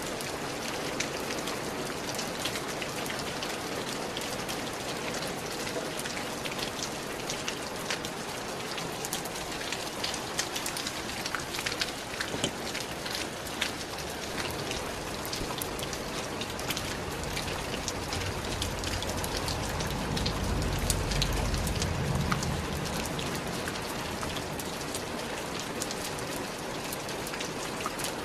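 Steady rain falling, a dense even hiss with many separate drop hits standing out close by. A low rumble swells and fades about two-thirds of the way through.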